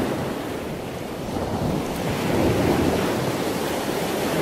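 Steady rush of ocean waves and wind, swelling a little in the middle and easing again.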